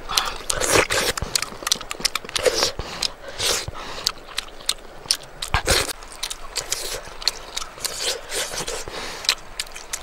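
Close-up eating sounds: lips smacking and a mouth chewing cooked fish, a quick irregular run of wet clicks and smacks.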